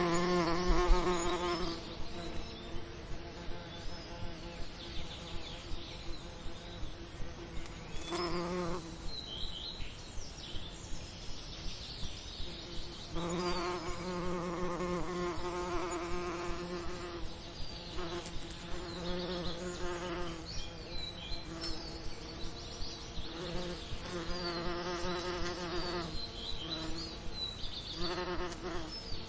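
Honey bees buzzing: a low, wavering drone that swells and fades in stretches of a few seconds, with short high chirps over it.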